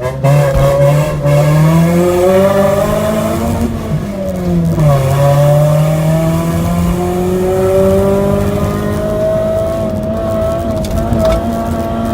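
Mazda 3's four-cylinder engine pulling hard on a hill-climb run: the revs climb, fall away about four seconds in as the car lifts or shifts, then climb steadily again.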